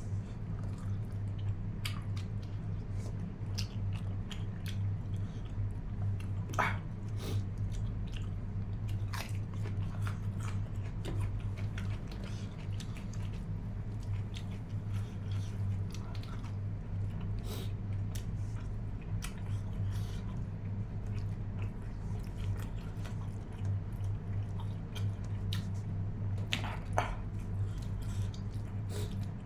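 Close-up eating sounds of someone chewing and biting into mutton: scattered wet smacks and clicks over a steady low hum.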